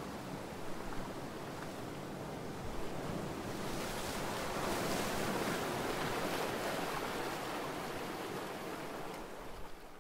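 Steady rushing noise with no distinct tones, swelling about four to six seconds in and fading near the end.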